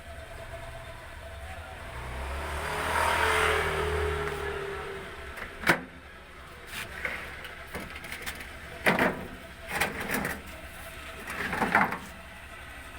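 A motor vehicle passing, its engine swelling and fading over about three seconds, followed by a sharp knock and several bouts of clatter from objects being handled.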